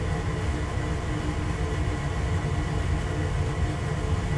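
Hot water heater running: a steady low rumble with a constant hum over it.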